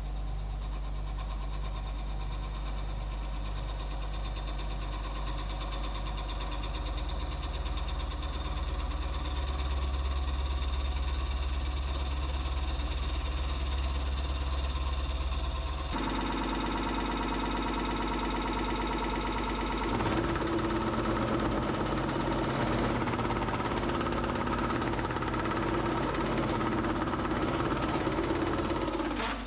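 Wood lathe running with a steady motor hum as a turning tool cuts a spinning birch bowl blank. The sound changes abruptly twice, and in the last several seconds a bowl-coring tool is cutting into the blank with a rougher sound.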